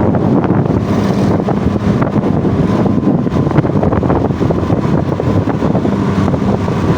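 Off-road vehicle engine running steadily while riding, with wind buffeting the microphone.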